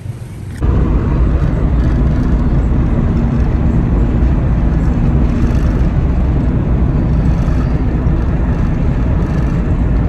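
Steady, loud rumble of road and engine noise inside a moving car's cabin, beginning abruptly about half a second in.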